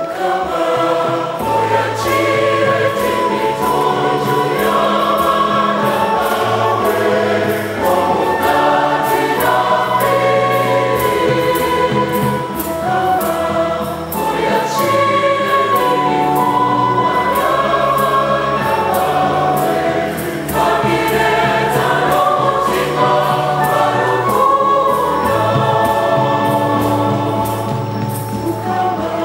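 Large choir singing a Catholic hymn in parts, with instrumental accompaniment including a flute and a steady bass line.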